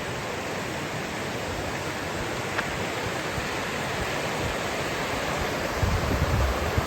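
Steady rush of flowing stream water, with low rumbling thuds near the end.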